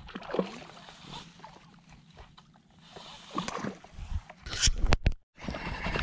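Bay water lapping and sloshing around a wading angler, with faint distant voices. About four and a half seconds in, a hand bumps and rubs the body-worn camera's microphone. The sound cuts out for a moment, then a steady hiss follows.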